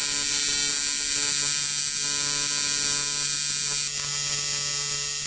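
AC TIG welding arc buzzing steadily while welding aluminium, the buzz pitched at the welder's 140 Hz AC frequency.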